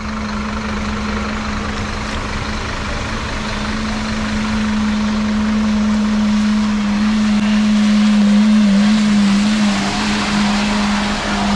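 Vehicle engines running through deep mud: a steady low engine hum throughout, growing louder around eight seconds in as a pickup truck drives slowly past close by.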